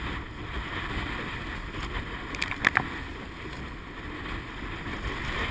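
Wind buffeting the microphone and water rushing past a surf boat being rowed, with a few short knocks about two and a half seconds in.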